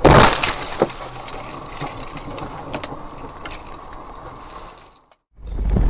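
A loud crash as a moving vehicle strikes an animal that hits the windshield and cracks it, with a second sharp knock just under a second later. Road noise then continues and fades out. About five seconds in, after a brief silence, a loud low rumble of another vehicle's road noise begins.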